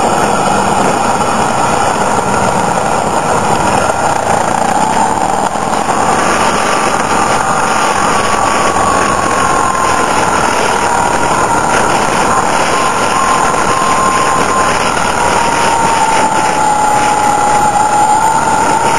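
Motorcycle engine running at road speed under heavy wind noise on the onboard microphone. Its pitch rises slightly about six seconds in and sinks again near the end.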